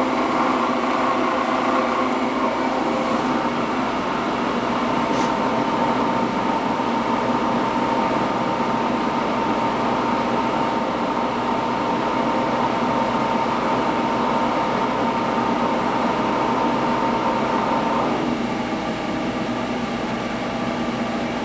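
HOSTON CNC hydraulic press brake running with a steady mechanical hum. A steady whine joins about two seconds in and stops shortly before the end, as the machine resets to step one of its program.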